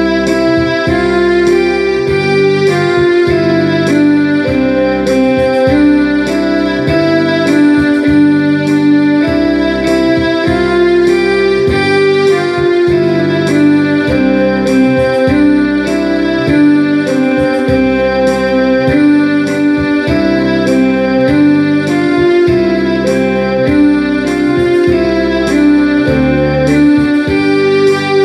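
Electronic keyboard playing a simple melody in held, stepwise notes over a steady programmed beat and bass accompaniment.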